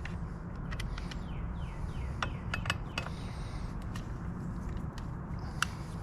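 Hand tools and small metal parts clicking and clinking while the shift linkage is worked on, in a few scattered taps, the busiest stretch about two to three seconds in, over a steady low background rumble.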